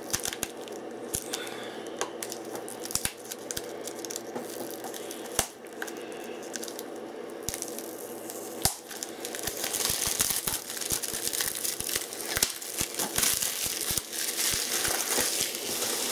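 Cellophane shrink-wrap being torn and peeled off a plastic Blu-ray case: crinkling and crackling with many sharp little clicks. It gets busier and louder about halfway through.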